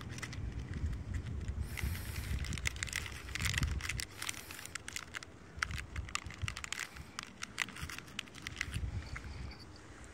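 A miniature dachshund moving about on gravel close by: a run of light clicks and crackles, busiest in the middle, over a low rumble that eases off about four seconds in.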